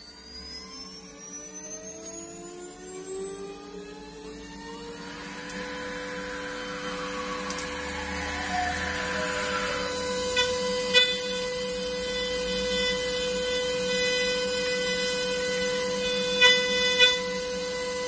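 5-axis CNC machining centre spindle spinning up with a rising whine that levels off into a steady high whine about five seconds in. About halfway through, the cutter engraves lettering into a tyre mold segment: the steady whine goes on, louder, with a few sharp ticks.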